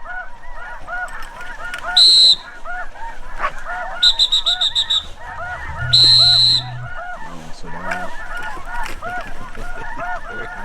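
A flock of geese honking over and over, many short calls overlapping. Cutting through it are loud, high-pitched piercing notes: one short note about two seconds in, a rapid stuttering run of them around four seconds, and a longer note about six seconds in.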